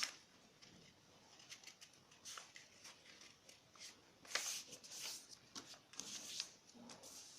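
A square sheet of origami paper being folded and creased by hand: faint, scattered rustles and crackles, the loudest about four seconds in.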